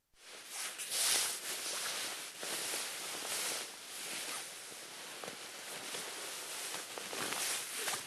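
Nylon clothing rustling with body movement: a continuous crisp swishing that swells and eases several times, starting and stopping abruptly.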